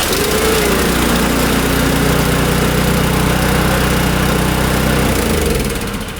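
A snowblower's small OHV engine catches as it is primed while the electric starter cranks it, the trick that gets a hard-starting engine going after summer storage. Its pitch swings up and down in the first second, then it runs steadily until it dies away near the end.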